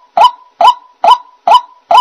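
White-breasted waterhen calling: a short, hooked 'ruak' note repeated at an even pace, about two notes a second.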